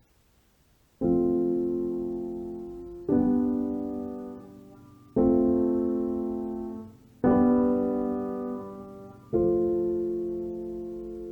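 Slow solo piano music: after about a second of near silence, five sustained chords are struck roughly two seconds apart, each ringing out and fading before the next.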